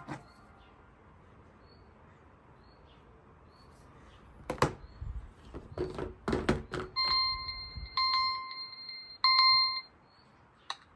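Mobile phone alarm sounding a plain electronic beep three times, each just under a second long, after a few knocks and taps about halfway in.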